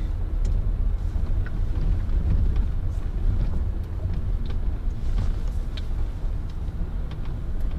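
Ram ProMaster City van driving slowly on a dirt road, heard from inside the cab: a steady low engine and tyre rumble, with a spare water jug sloshing around and occasional small clicks and knocks.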